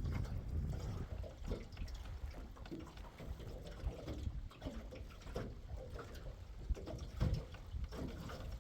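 Water splashing and lapping close by, with irregular small knocks and splashes over a steady low rumble.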